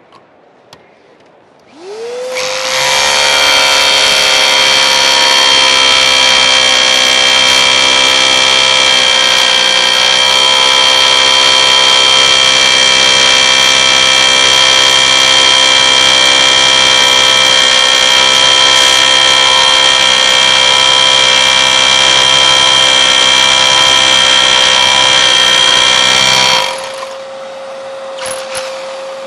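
A vacuum cleaner starts up about two seconds in, and an electric drill with a masonry bit runs steadily beside it, boring a test hole into a concrete slab while the vacuum hose draws off the dust. The drill stops near the end and the vacuum keeps running.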